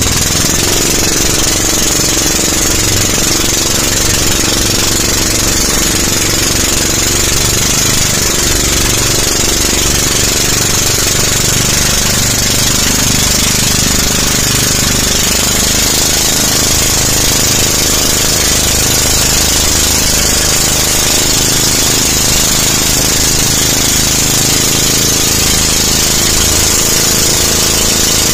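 Engine of a tow boat running steadily at speed while pulling a banana boat, loud and close.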